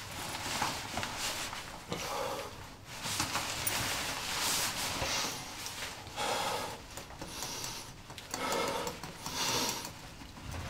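A man breathing heavily: a run of loud, hissy breaths a second or two apart.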